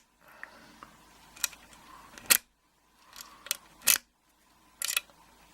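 A lock pick being worked in and out of the keyway of an Ian Firth 5-pin euro cylinder, making a handful of sharp, irregularly spaced metallic clicks over light scraping. It is a quick open by zipping or raking rather than single-pin picking.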